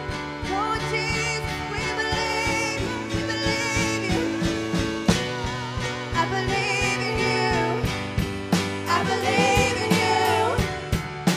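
Live worship music: a woman singing, her held notes wavering, over sustained keyboard chords with a steady beat.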